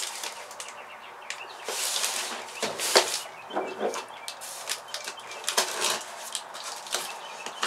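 A cardboard box being handled and its packing tape picked at and peeled: scattered rustling, scraping and tearing noises, with a sharper knock about three seconds in as the box is set down.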